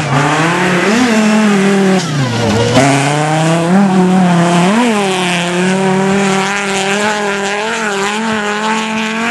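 Race car engine on a dirt track revving hard and lifting off through the corners, its pitch rising and falling repeatedly, with a deep drop about two and a half seconds in before it climbs again.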